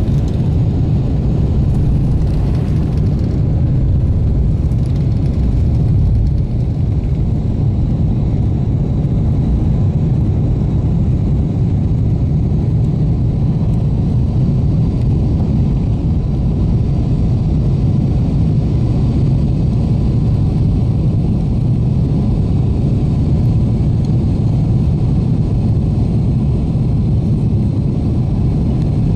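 Jet airliner cabin noise during the takeoff climb: the engines and airflow making a steady, loud low rumble.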